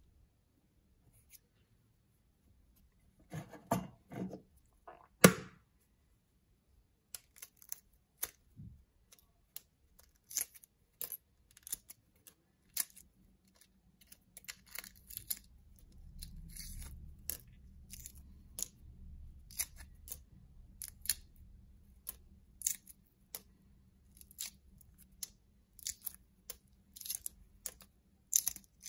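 Hard-boiled egg shell crackling and snapping as it is picked off by hand, many small sharp irregular cracks. A few louder knocks come about four to five seconds in.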